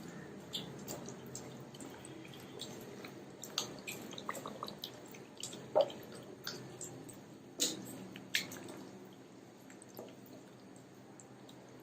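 Hands kneading boneless chicken pieces in a wet marinade of yogurt, egg, cornflour and soy sauce: soft squelching with many scattered small clicks, a few sharper ones in the middle.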